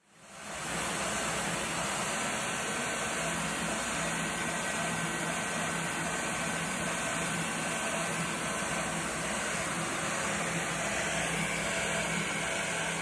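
Gerber Sabre CNC router spindle running while cutting sign blanks, with its dust-extraction suction drawing air through the hose. The result is a steady whir and hiss with a faint constant whine, fading in over the first half second.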